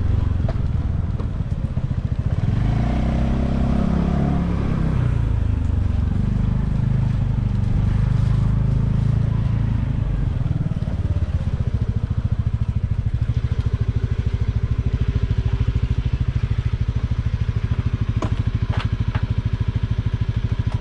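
Honda Vision 110 scooter's single-cylinder four-stroke engine running, its engine speed shifting in the first half, then settling into a steady idle with an even pulse from about halfway through.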